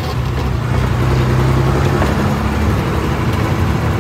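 Truck engine running steadily with a low, even hum.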